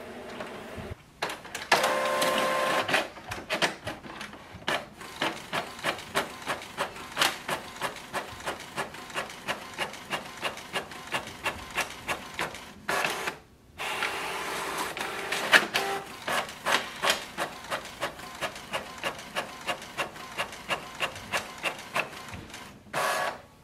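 Canon MAXIFY GX3020 inkjet printer running an automatic two-sided print job: a feed-motor whine as the sheet is drawn in, then a long run of evenly spaced clicks as the print head passes. About halfway through there is a short pause and another whine, then the clicking resumes for the rest of the page.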